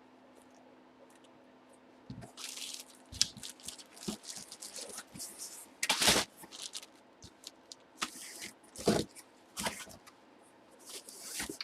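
Trading cards and plastic card sleeves or holders being handled on a table: irregular crinkling, rustling and light taps that start about two seconds in, after a faint hush, with the loudest crinkle around the middle.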